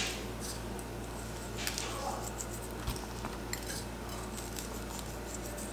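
Faint scattered clicks and clinks of kitchen handling around a stainless steel stockpot, over a low steady hum.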